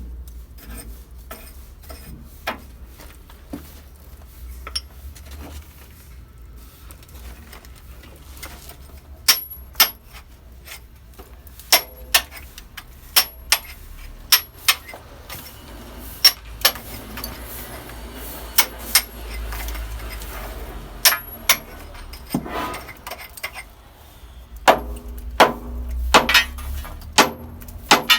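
Irregular sharp metal-on-metal strikes and clinks from tools, each with a short bright ring, coming in small groups and more closely spaced near the end.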